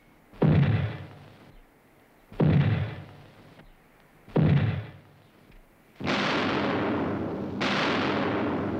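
Mortars firing: three sharp bangs about two seconds apart, each trailing off. From about six seconds in, a continuous rumble of shells exploding downrange.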